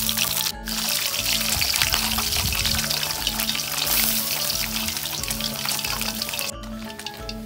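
Pindang fish deep-frying in hot oil in a wok: a dense, steady sizzle and crackle that drops out for an instant twice and is quieter after the second break.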